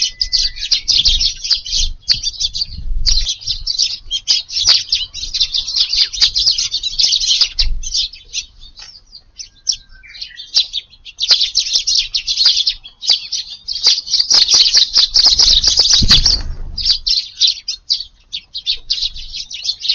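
A crowded flock of Eurasian tree sparrows chirping densely and continuously while feeding, with a couple of brief lulls.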